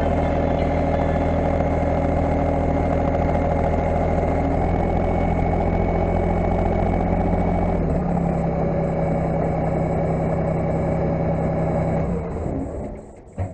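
Tractor engine running steadily at close range; its note changes about two-thirds of the way through, then it is shut off near the end and dies away.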